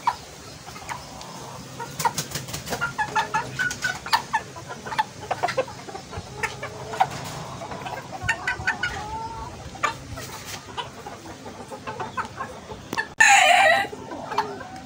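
Gold-laced Sebright bantam chickens clucking in short scattered calls, with one louder, longer call near the end.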